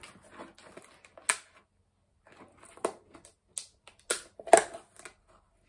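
Small containers and craft tools handled on a tabletop: about half a dozen separate sharp clicks and knocks as things are picked up and set down, the loudest about four and a half seconds in.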